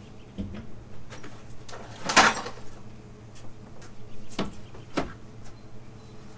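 Handling noise of tools being put away and brought out: scattered knocks, a louder clatter about two seconds in, then a hard plastic tool case set down on a wooden table with a couple of sharp knocks.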